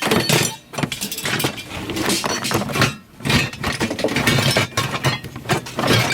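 Scrap metal clanking and clattering in a rapid run of knocks as it is handled and loaded, with machinery running beneath.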